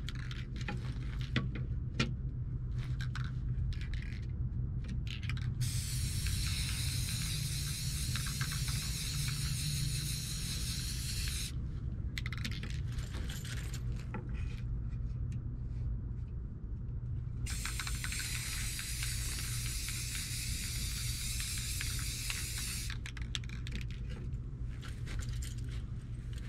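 Aerosol spray paint can spraying through a stencil. Two long, even hisses of about five seconds each come about six seconds in and again past the middle, with short clicks and brief spurts between them. A steady low hum runs underneath throughout.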